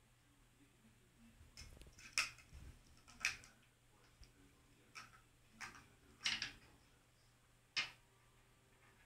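A string of small ball-shaped Christmas lights and its battery box clicking and knocking as a cat paws and tugs at it. The clicks are short and sharp, about six or seven of them at uneven intervals.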